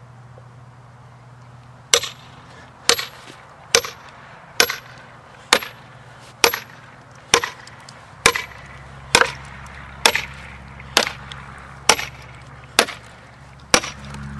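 Sledgehammer blows on a steel splitting wedge, driving it into a maple log along a hatchet-scored line to split it. Sharp metal-on-metal strikes come about once a second, starting about two seconds in.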